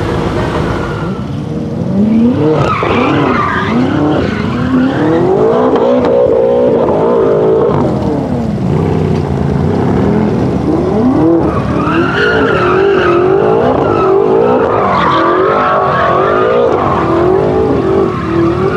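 Modified BMW M5 F10 with an Akrapovic exhaust doing donuts: its twin-turbo V8 revs rise and fall over and over against screeching tyres. About a second in, a fading rev gives way to the donut run.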